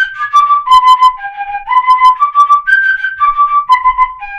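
Pífano, a transverse fife in C, playing a G major arpeggio (G–B–D–G) down and back up and down again without a break, about two tongued notes a second. It ends on a held low G near the end.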